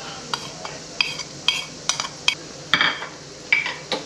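Utensils clinking and knocking against pots and dishes: about a dozen sharp, irregularly spaced clinks.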